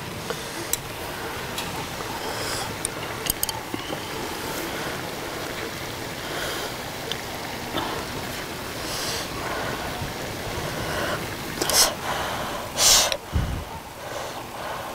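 Pork and kimchi stir-fry sizzling steadily on a large cast-iron cauldron-lid griddle, with scattered clicks of chopsticks against the pan and bowls. Two louder brief noises come near the end.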